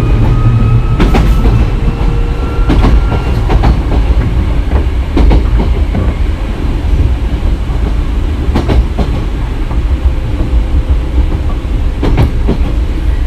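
Nose Electric Railway 1700 series electric train running: a steady low rumble, with the wheels clacking over rail joints several times and a faint motor whine early on.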